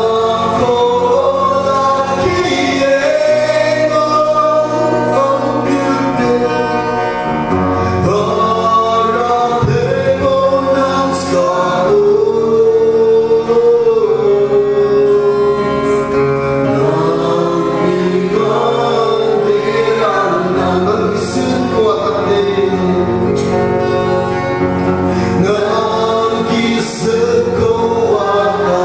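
Male voices singing a gospel song into microphones over loudspeakers, with instrumental accompaniment.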